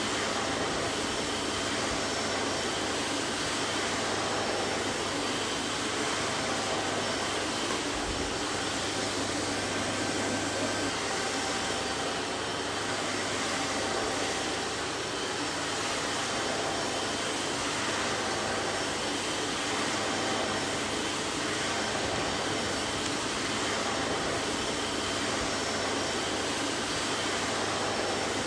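Vacuum cleaner running steadily: a constant rushing hiss of airflow with a faint motor whine and a low hum underneath.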